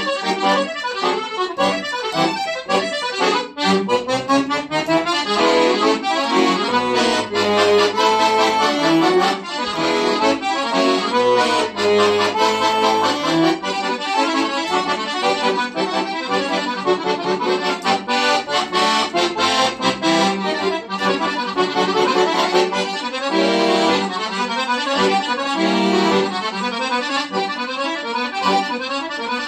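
Solo accordion playing a fast scherzo: quick runs of many short notes, sounding steadily throughout.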